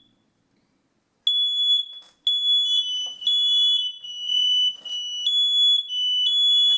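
Newly installed First Alert hardwired smoke detector sounding its test alarm in repeated loud, high beeps. About a second later a second alarm at a slightly lower pitch joins and overlaps it: the interconnected detectors still installed are being set off.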